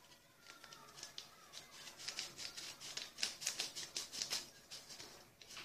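Small metal mesh sieve being shaken and tapped to sift flan powder: a quick run of light rattling ticks, about five a second, starting a second or so in.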